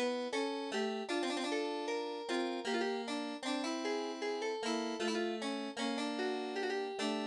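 Background music: a lively keyboard piece with a harpsichord-like tone, notes changing several times a second.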